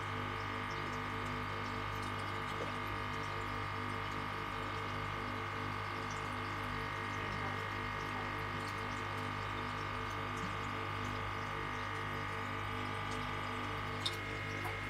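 Aquarium pump running with a steady hum. One sharp click near the end.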